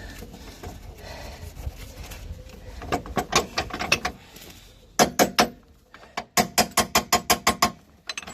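Ratchet wrench clicking in short runs as the ball joint press tool's screw is backed off, ending in an even run of about seven clicks a second.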